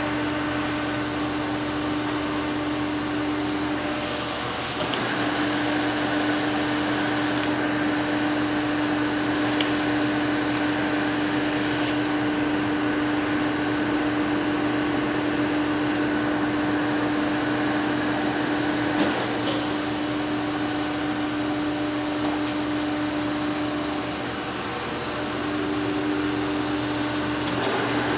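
Nardini SZ2580T engine lathe running under power with its spindle and chuck turning: a steady mechanical hum from the headstock drive. The tone shifts about five seconds in and shifts back near the end.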